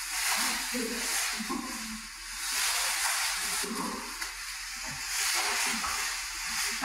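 Plastic sheeting rustling and crinkling as people move with it, in swells of hiss that rise and fall every two to three seconds, played back through a lecture hall's speakers.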